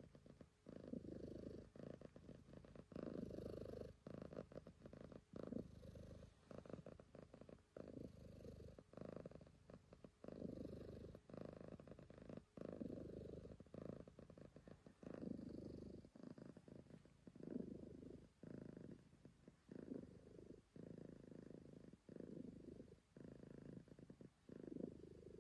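Calico cat purring softly and continuously while being stroked, the low purr swelling and dipping with each breath in and out, about once every second or so.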